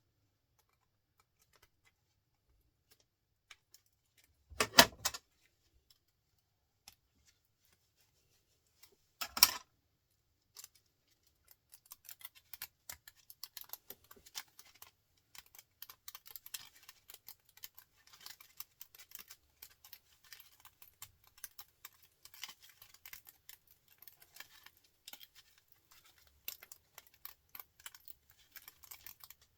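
Hand-stripping copper winding wire from a small electric motor: two sharp metal knocks about 5 and 9 seconds in, then a long run of fine, fast clicking and rustling as the wire strands are picked and pulled off.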